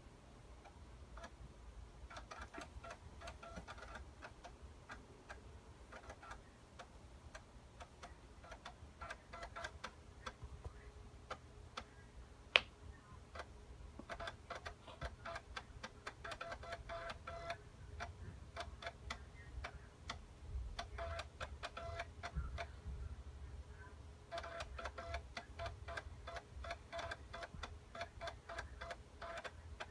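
PowerBook 180's built-in floppy drive reading a boot disk: bursts of rapid ticking as the head steps, in several clusters with short pauses between. There is one single sharp click about twelve seconds in.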